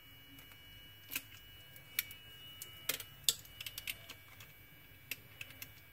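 Irregular small clicks and ticks of a precision screwdriver and fingers working a screw out of a plastic beard trimmer casing. Underneath is a faint steady hum from the trimmer's motor, which water damage has left running because it cannot be switched off.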